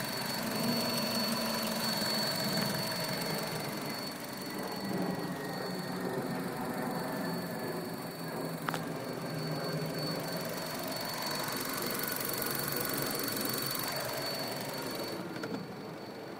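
2014 Chevrolet Cruze's Ecotec four-cylinder engine idling steadily, with a single sharp click about nine seconds in.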